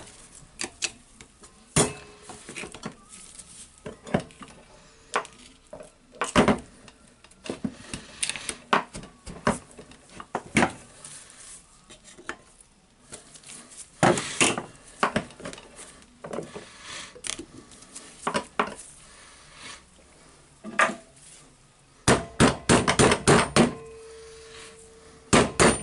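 Metal hand tools clinking and knocking against the metal housing of a Hilti TE1000-AVR demolition hammer as a stuck socket is worked loose with a screwdriver. Irregular sharp clinks, then a quick run of knocks near the end.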